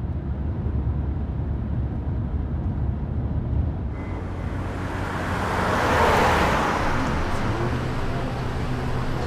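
Low, steady road drone inside a moving car. About four seconds in it gives way to open-air traffic noise, with a car driving past that is loudest around six seconds in.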